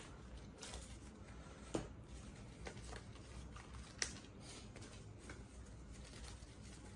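Playing cards being dealt by hand onto a table: faint soft flicks and taps, the two clearest a little under two seconds in and about four seconds in.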